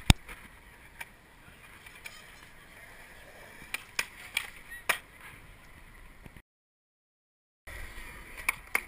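Skateboard on concrete: sharp clacks of the board popping and landing, with a cluster of them in the middle, over the steady roll of wheels. The sound drops out completely for about a second past the middle, then returns with two more clacks near the end.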